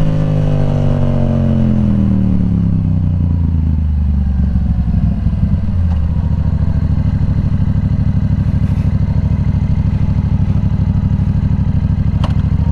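Yamaha R7 parallel-twin running through a Yoshimura AT2 full exhaust system. The revs fall steadily for about six seconds as the bike comes off the throttle, then settle into a steady low idle.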